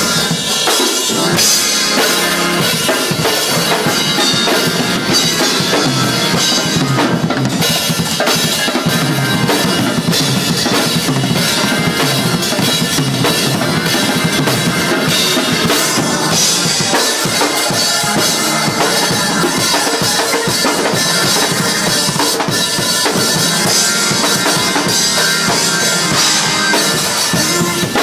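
Two drum kits played together in a gospel shed session: dense, unbroken snare, tom and bass-drum strokes under a constant wash of cymbals, loud and without a pause.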